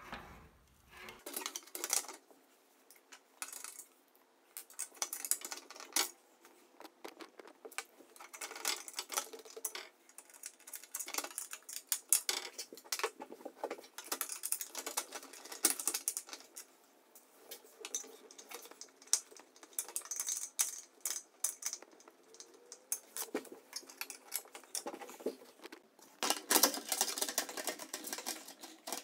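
Plastic shroud panels of an exercise bike being handled and fitted into place, with irregular clicks, knocks and light rattles of plastic parts and metal tools. The clatter is densest near the end, as a wrench goes onto the crank.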